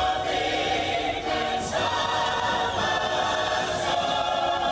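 Music with a choir singing held chords, and two brief high shimmers about a third of the way in and near the end.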